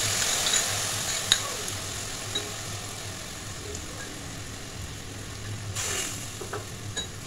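Saffron-soaked milk poured into hot oil and vegetables in an aluminium kadai, sizzling loudly at first and dying down over a few seconds. A single click about a second in, and a second short burst of sizzling near the end as more liquid goes in.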